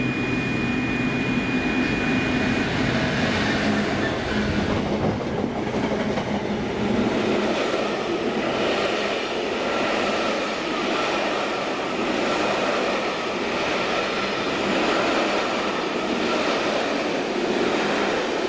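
Class 66 diesel locomotive hauling a train of passenger coaches past, its engine drone heard in the first few seconds, followed by the steady running noise of the coaches' wheels on the rails.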